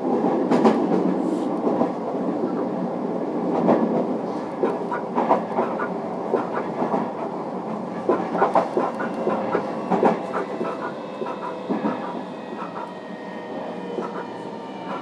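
Running noise of a JR Kyushu 305 series electric train, heard inside its motor car: the wheels clack over rail joints amid steady rumbling. The noise grows quieter as the train slows for a station stop, and a faint electric whine from its Toshiba PMSM inverter drive comes in near the end.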